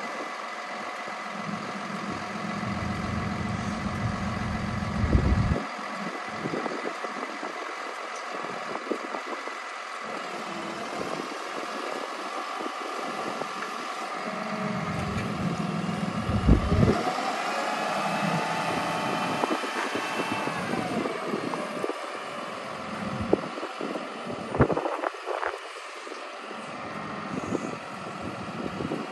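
The digger derrick truck's 6.7-litre Cummins diesel runs steadily while driving the Altec DC47-TR's hydraulics as the boom is raised. In the middle a whine rises in pitch, holds, then falls away, and a few short knocks come near the end.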